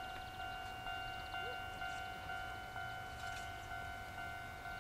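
Japanese railway level-crossing warning bell ringing: a ringing, pitched 'kan-kan' strike that repeats evenly, just under twice a second.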